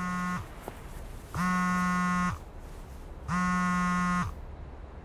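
Samsung mobile phone buzzing with an incoming call that goes unanswered. The steady buzz comes in pulses about a second long, roughly two seconds apart, and stops about four seconds in.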